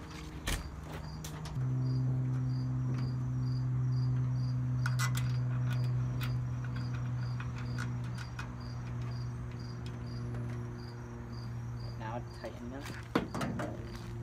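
A steady low hum comes in about a second and a half in and holds, under an insect chirping in an even pulse, two or three times a second. A few light metallic clicks come from the steel cabinet panels being handled.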